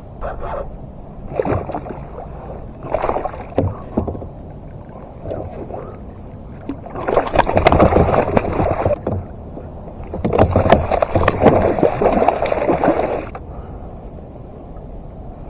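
Water splashing in irregular bursts, the two longest and loudest about seven to nine seconds and ten to thirteen seconds in.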